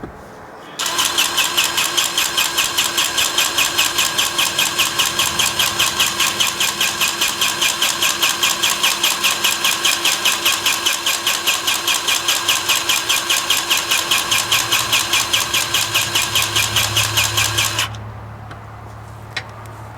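Lincoln 20-volt cordless grease gun running, its pump pulsing about four times a second as it forces grease into a mower deck spindle. It starts about a second in and cuts off sharply near the end.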